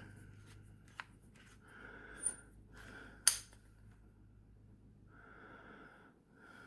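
A few sharp clicks from handling a torque wrench, the loudest about three seconds in, with soft breathing through the nose between them.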